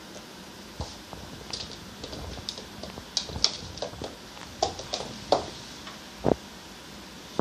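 German Shepherd puppy's claws clicking and scrabbling on a wood floor as she spins after her tail, in scattered taps with a duller thump about six seconds in.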